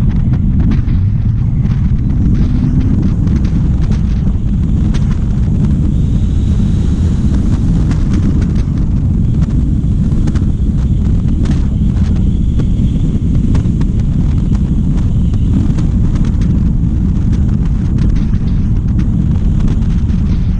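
Wind buffeting a camera microphone on the outside of a moving car, a loud, steady low rumble mixed with road noise at cruising speed.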